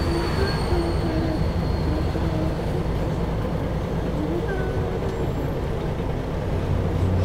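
Interior sound of a Mercedes-Benz O405GN2 articulated bus: the engine runs with a steady low drone while the bus moves slowly, under a constant cabin noise.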